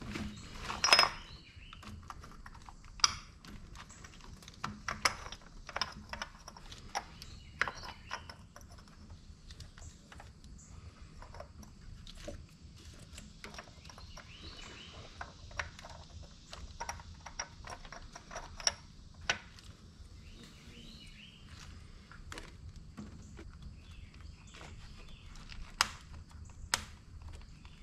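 Hands refitting parts in a car engine bay: irregular clicks, taps and light knocks of plastic connectors, hose and clips, with a louder snap about a second in and two more near the end as the plastic engine cover is pressed down.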